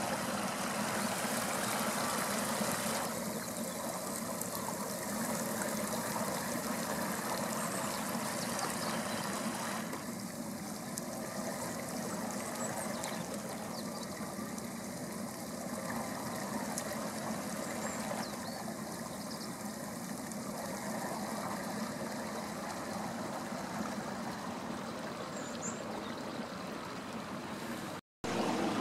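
Thermal spring water running steadily along a narrow channel cut in the travertine, a continuous trickling rush of flowing water.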